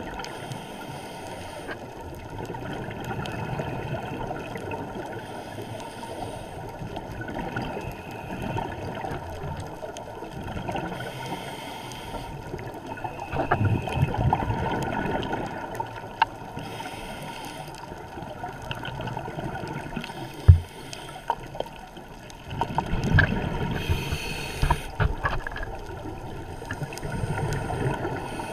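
Underwater sound of scuba regulator breathing heard through a camera housing: a short hiss on each inhale and a rush of bubbling exhaust, the cycle repeating about every five to six seconds. A few sharp knocks or clicks, the loudest about two-thirds of the way through.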